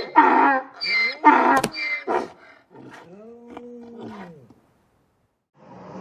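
An animal calling: a string of loud, short calls rich in harmonics for about two seconds, followed by quieter calls that rise and fall in pitch, then a second of silence near the end.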